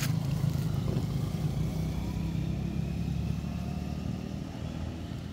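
A steady low engine drone, like a motor vehicle running nearby, easing off slightly near the end.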